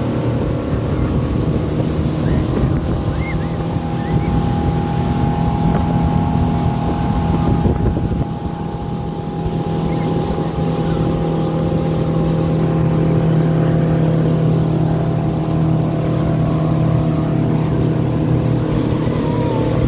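Boat motor running steadily at cruising speed under tow load, a constant engine hum over the rush and churn of the wake.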